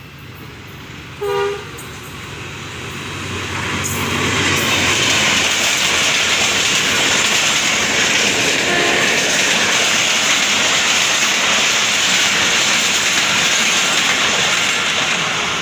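A diesel locomotive's horn gives one short blast about a second in. Then a Pakistan Railways passenger train passes close by: a loud, steady rush of wheels and coaches on the rails that builds over the next few seconds and holds.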